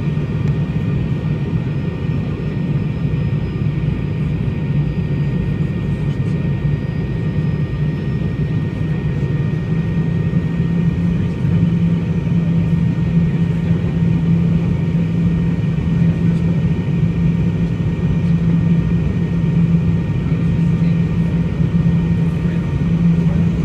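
Cabin noise of an MD-80 airliner on final approach: a steady rush of airflow and the drone of its tail-mounted Pratt & Whitney JT8D turbofans, with a strong low hum and a faint steady whine above it.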